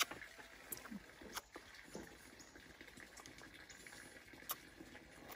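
Faint eating sounds: a few light clicks of chopsticks against a ceramic bowl and soft slurps as a small child eats noodles.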